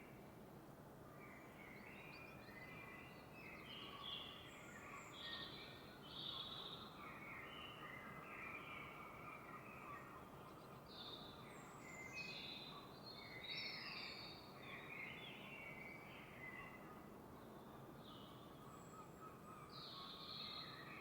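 Faint birdsong: several birds chirping in short, scattered phrases over a steady background hiss.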